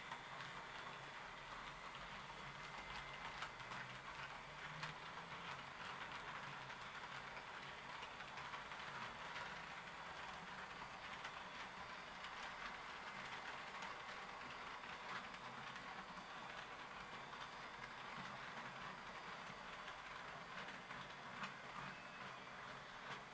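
Roco HO-scale model train running on sectional track: a faint, steady rolling sound with scattered light clicks of the wheels over the rail joints.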